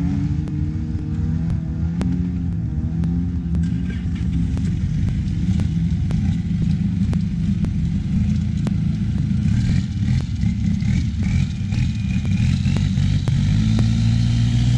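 Turbocharged diesel engine of a Thai long-tail racing boat running steadily, heard from on board, then revving up near the end as the boat picks up speed.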